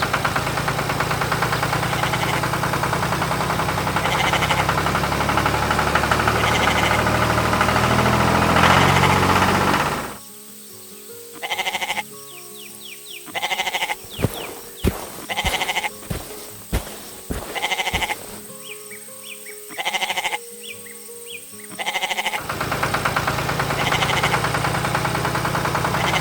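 Cartoon soundtrack of music over a steady engine-like rumble. About ten seconds in it drops away to a stretch of short animal calls and sharp clicks, and the rumble returns near the end.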